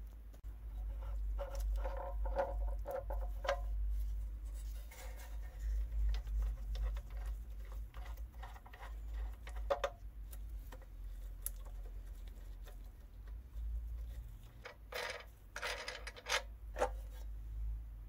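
Scratchy clicks and scrapes of a small rusty nut being turned off a threaded stud by gloved fingers, metal grating on corroded threads, with a brief squeak a couple of seconds in and a few louder scrapes near the end.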